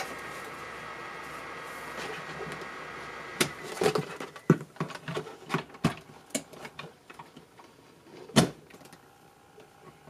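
Alrocket mini electric fan heater running with a steady fan whine, which stops about three and a half seconds in. Then come a series of plastic clicks and knocks from plugs and a power cord being handled, the sharpest near the end.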